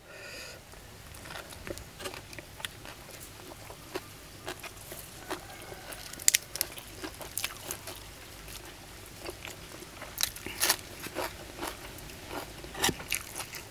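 Close-up eating sounds: irregular crisp crunches and wet mouth clicks from chewing crunchy green papaya salad with sticky rice.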